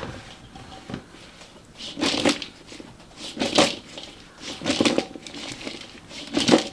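Broccoli salad being tossed and stirred in a large mixing bowl: a crunchy swish of the vegetables with each scoop, about six times, roughly one every second and a half.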